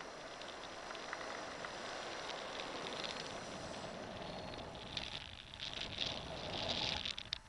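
Wind rushing over the camera microphone in flight under a paraglider. About five seconds in, crackling, rustling bursts come in as the gloved hand on the brake line moves close to the camera. The sound drops away suddenly just before the end.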